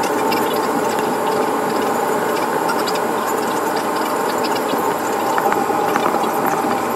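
Airliner cabin noise on the runway during the landing roll: a steady rush of engine and air noise under a faint hum, with small rattles and clicks from the cabin fittings.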